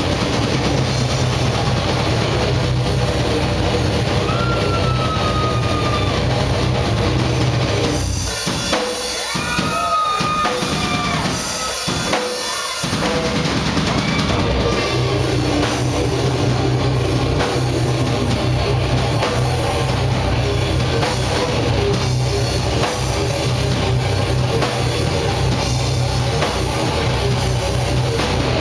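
Live metal band playing loud with distorted electric guitars, bass and drum kit. About 8 seconds in, the low end and drums drop out for a few seconds, leaving higher bending notes, before the full band comes back in.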